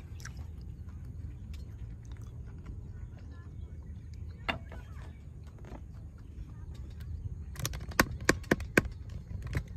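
Low wind rumble on the microphone, with a few soft clicks partway through. About eight seconds in comes a quick run of sharp clicks and taps, the loudest sounds.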